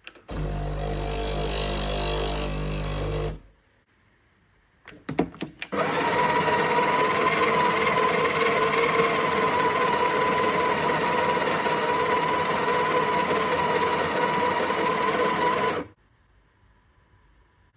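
Sage espresso machine at work: its pump hums steadily for about three seconds, a few clicks follow, then the built-in burr grinder runs for about ten seconds with a steady whine and stops abruptly.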